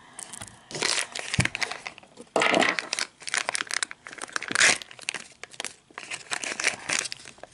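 A crinkly purple plastic toy packet being handled and crumpled by hand, crackling on and off.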